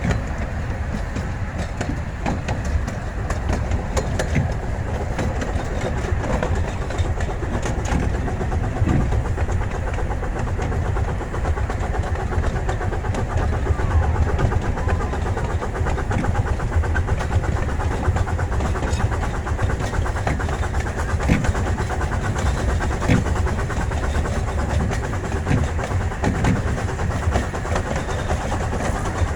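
Riding aboard a miniature steam train: a steady rumble of the cars rolling along the track, with many sharp clicks of the wheels over rail joints.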